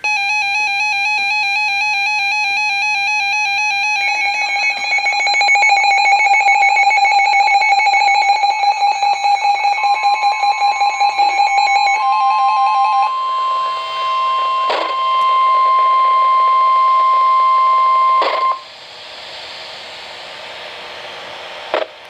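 Weather radio receivers sounding a severe-weather alert: a warbling electronic alarm beep, joined about four seconds in by a second, fast-pulsing alarm. About ten seconds in, the steady single-pitch NOAA Weather Radio warning tone starts; it cuts off near the end, leaving radio hiss.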